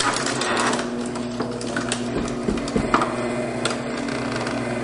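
Electric paper shredder motor running steadily as its cutters chew through a plastic software disc, with scattered sharp cracks and crunches from the disc, most of them around the middle.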